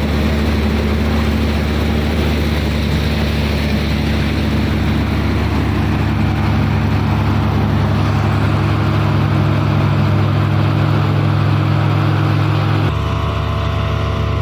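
Combine harvester's diesel engine running steadily at working speed, a deep, even drone with machinery noise above it. Near the end the tone changes abruptly to a different, lower engine note.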